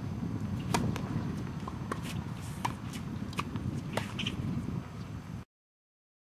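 Tennis ball struck by rackets and bouncing on a hard court during a doubles rally: a string of about six sharp pops, the first and loudest a serve, under a steady low rumble. The sound cuts out abruptly about five and a half seconds in.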